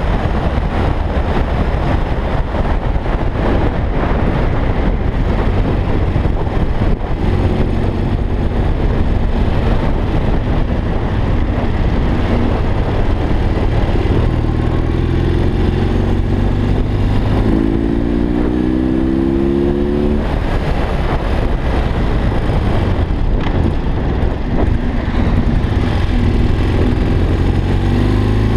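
BMW R45's air-cooled flat-twin boxer engine running under way, with heavy wind noise from riding. About two-thirds of the way through, the engine winds up in pitch as the bike accelerates, then drops back.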